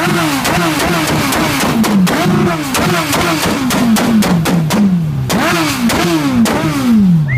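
Engine revved hard in quick repeated throttle blips, its pitch shooting up and falling back about twice a second with sharp cracks among them. There is a short pause about five seconds in, and the last blip falls away slowly.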